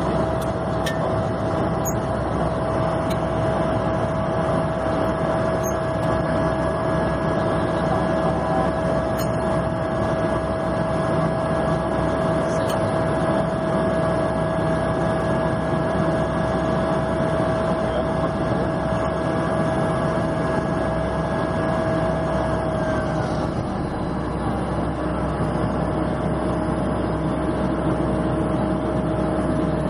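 Cessna 208B Grand Caravan's Pratt & Whitney PT6A turboprop and propeller heard from inside the cockpit: a steady drone with a constant whine on top. About three quarters of the way through, the whine dips slightly in pitch as the power or propeller speed eases off.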